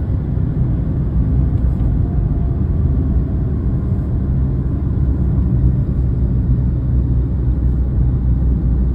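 A car driving at steady speed: a constant low engine and road rumble heard from inside the cabin.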